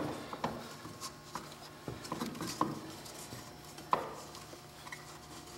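Snowmobile drive belt being worked around the clutches by hand: faint rubbing and a few light metallic clicks, the sharpest about four seconds in, as the driven clutch sheaves close back together and the belt seats.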